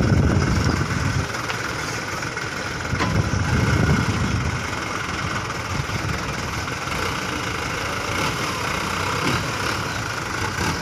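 Diesel engine of a small dump truck running with its tipper bed raised, swelling louder twice, at the start and again about four seconds in, as the truck is rocked to shake the last of its sand-and-gravel load out of the bed.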